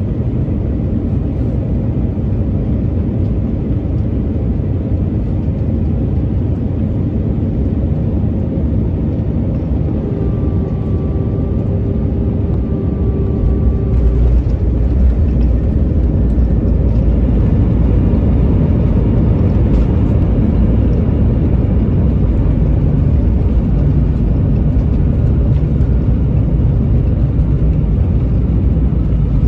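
Airbus A320 landing: a steady rumble throughout, with a steady whine for about four seconds about a third of the way in, after which the low rumble grows louder and stays so.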